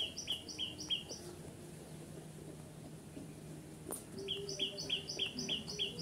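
A small bird chirping in a fast, even series, about six short two-note chirps a second; it stops about a second in and starts again near the end. A single sharp click comes just before the chirping resumes.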